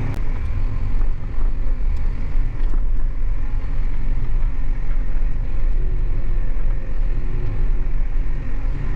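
Tractor engine running steadily under load while driving along, with a deep rumble and a constant noisy drone.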